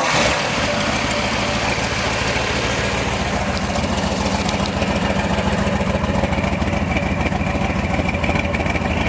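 1972 Corvette LT1's 350 cubic-inch V8 catching right at the start, then idling steadily through its side exhaust pipes.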